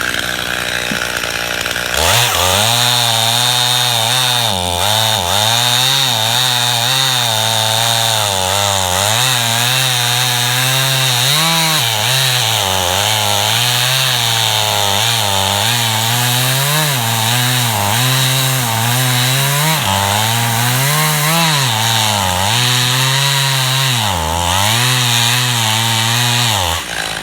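Stihl MS291 two-stroke chainsaw cutting through a log at full throttle, its engine pitch repeatedly dipping and recovering as the chain bites into the wood. It gets louder about two seconds in.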